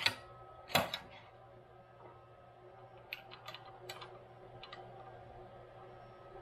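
Two sharp metal clicks in the first second, then a few light ticks between about three and five seconds in, as the gib strip is slid back into the mill saddle and its adjusting screws are handled.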